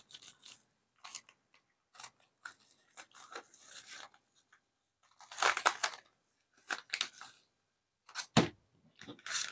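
A small mail package being torn open and handled by hand, in scattered short crackling rustles, loudest in a cluster about halfway through and again near the end.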